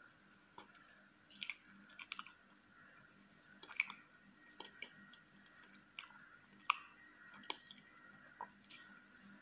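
Close-miked mouth sounds of a person chewing soft cream cake: irregular wet smacks and clicks, a few every couple of seconds, the loudest about four and seven seconds in.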